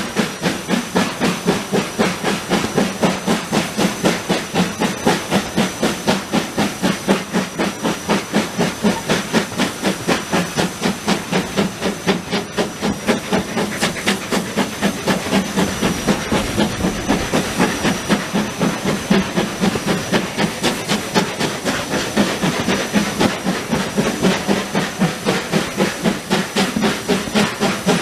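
GWR tank steam locomotive working a train, heard from the carriage right behind it: its exhaust beats come in a quick, even rhythm, about three a second, with a thin steady high tone over them. The beats go softer for a few seconds in the middle, then strengthen again.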